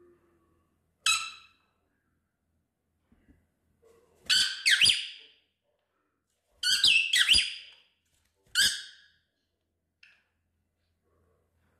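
Pet lovebirds calling: loud, high-pitched chirps, one at a time or in quick pairs, with short silences between them.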